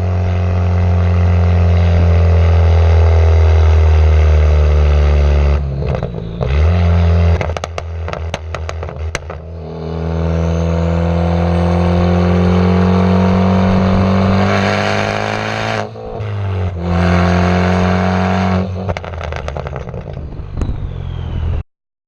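Straight-piped Ford Focus ST Mk3's turbocharged 2.0-litre four-cylinder exhaust revving up through two hard pulls, with a short break for a gear change near the middle. When the throttle is lifted it pops and crackles in quick rattling bursts, from a tune set up for pops and crackles and a catless downpipe. It cuts off suddenly near the end.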